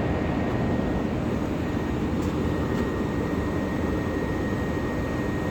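Steady low mechanical drone of background machinery, with a faint steady high whine over it.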